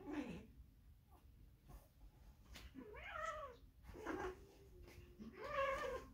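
A young domestic cat meowing and yowling several times while she wrestles her own tail. The calls are drawn-out and bend up and down in pitch, and one is held for about a second a little after four seconds in.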